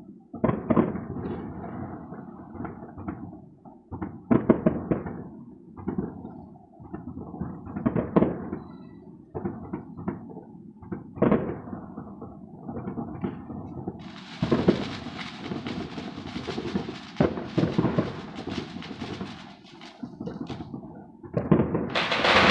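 Fireworks and firecrackers going off across the city: irregular echoing bangs every second or so. About two-thirds in they thicken into a dense crackling hiss, which swells to a loud rushing roar near the end.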